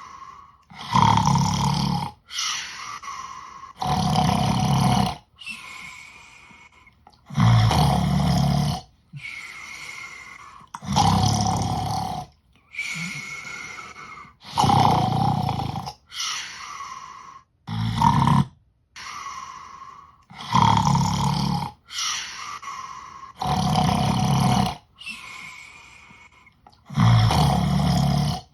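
Loud rhythmic snoring, nine loud rasping snores, each followed by a quieter, higher-pitched breath, one cycle about every three and a half seconds.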